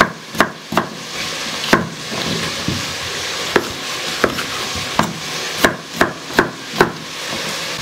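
Chef's knife chopping peeled potatoes into cubes on a wooden cutting board: about a dozen sharp knocks of the blade against the board at an uneven pace, over a steady hiss.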